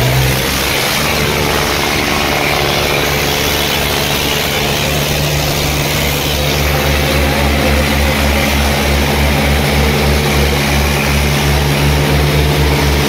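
Diesel tractor engine running loud and steady, with a low pulsing beat about three to four times a second.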